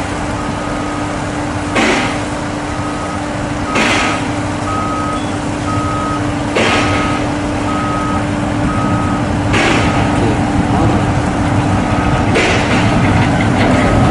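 Heavy trucks at work: a steady engine hum under a truck's electronic warning beeper going about once a second. A short, sudden burst of hiss comes every two to three seconds, and the whole grows louder toward the end.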